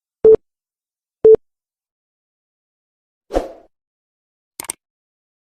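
Two short, identical electronic beeps a second apart, then a brief dull thud a couple of seconds later and two faint clicks near the end.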